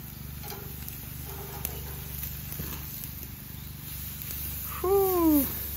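Gas grill burners running with a steady low hum, with a few faint clicks of steel tongs against the grill grates as steaks are flipped. About five seconds in, a short voice-like call falls in pitch and is the loudest sound.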